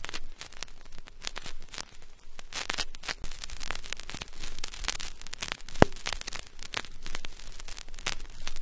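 Surface noise of a 45 rpm vinyl single played in a silent stretch of groove: a steady run of crackles and small ticks, with one sharper pop about six seconds in.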